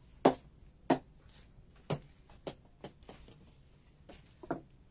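A cricket ball tapped against the blade of an SG IK Ultimate cricket bat: about half a dozen sharp, irregular knocks, the first three loudest. It is a test of how the blade responds to the ball.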